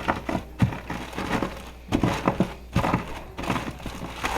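Plastic zip-top bag crinkling as the Oreo cookies inside it are crushed by hand, with irregular short knocks and crackles.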